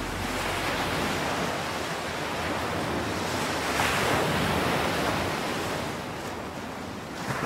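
Ocean surf breaking and washing on a beach, swelling about four seconds in and again near the end.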